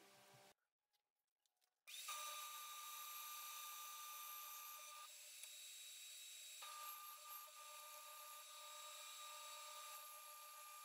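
Band saw running and cutting through a thick block of wood: a steady whine with several high tones, starting about two seconds in after a moment of near silence.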